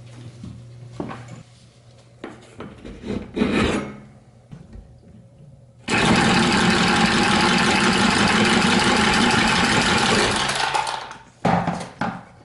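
A few knocks and rattles, then a Milwaukee M12 cordless copper tubing cutter starts abruptly about six seconds in and runs steadily for about five seconds, cutting through a copper water-supply stub. It stops near the end, followed by a few sharp clicks.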